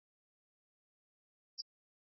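Near silence: the sound track is blank, broken only by a single very short, high click about one and a half seconds in.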